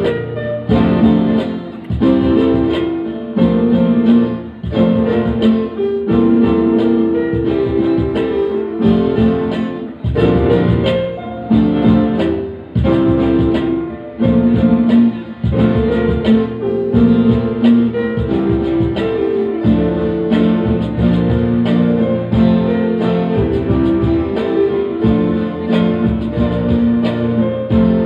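Live instrumental band music: an electric guitar playing with keyboards, and a hand drum beating out a rhythm.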